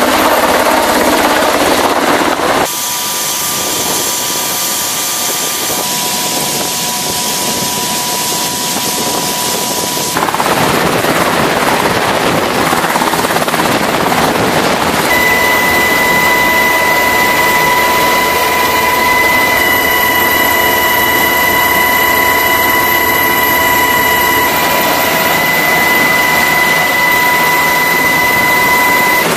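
Navy Sikorsky H-60 Seahawk helicopter hovering low, with steady rotor and turbine noise. From about halfway through, a steady high whine from the engines and transmission sits on top.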